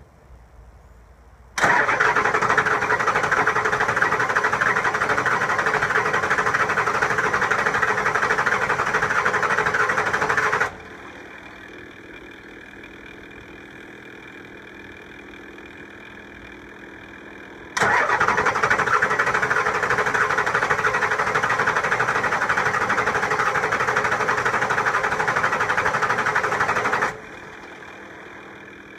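7.3 Powerstroke V8 diesel being cranked on its starter in two steady bursts of about nine seconds each, with a pause between. It is hard starting after new injector O-rings. Between the cranks a quieter steady hum is heard.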